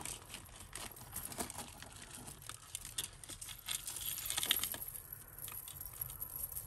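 Costume jewellery pieces clinking and rattling against each other as they are handled and untangled: a run of light, irregular clicks, busiest about four seconds in.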